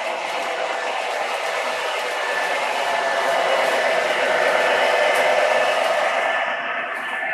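O gauge model train running along the layout track: a steady whirring rush of motor and wheels that swells a little around the middle and eases off near the end as it passes.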